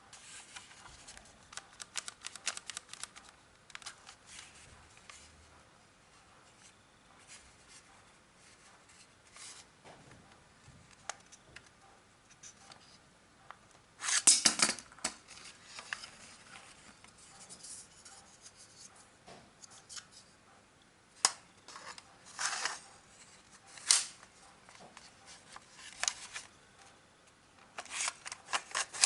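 Plastic parts of a toy Desert Eagle airsoft pistol clicking and scraping as it is handled: scattered sharp clicks with short clusters of rattling. The loudest cluster comes about halfway through, and several more follow near the end.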